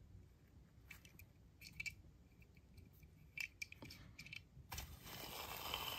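Faint scattered clicks and light scrapes of a small die-cast toy car being turned over in the hand, then a soft rustling hiss for about the last second.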